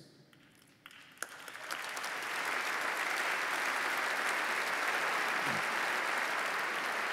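Audience applauding. The clapping starts about a second in, swells over the next second or so and then holds steady.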